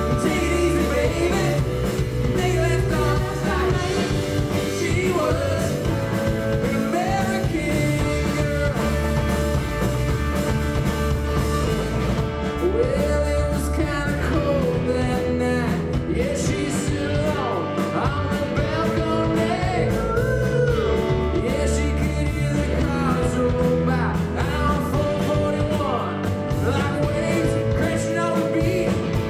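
Live rock band playing a song: a man singing over electric guitar and bass guitar.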